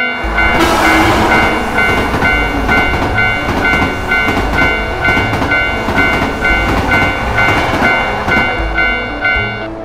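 Japanese railroad crossing bell clanging about twice a second while an electric train passes with a loud, steady rushing rumble. The train noise starts about half a second in and eases near the end.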